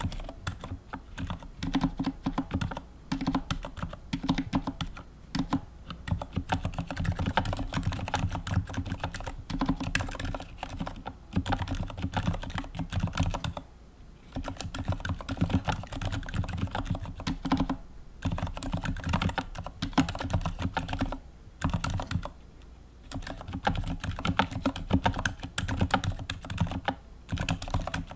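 Continuous fast typing on a mechanical keyboard fitted with Gateron Silent Black linear switches: a dense run of muted keystrokes, broken by short pauses near the middle and about three quarters of the way through.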